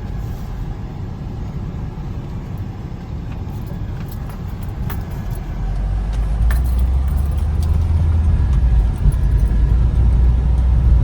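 Road noise inside a moving car's cabin: a steady low rumble that grows louder about halfway through, with light rattling clicks.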